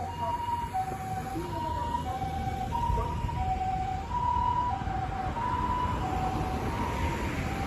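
A Japanese ambulance's TCD electronic siren sounds its two-tone "pee-po" call, a higher and a lower note alternating about every half second, over the rumble of the vehicle on the road.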